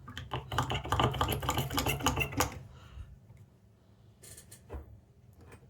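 Brush scrubbing a laptop motherboard with isopropyl alcohol to lift burnt reflow flux: a rapid run of scratchy strokes for about two and a half seconds, then a few separate clicks near the end.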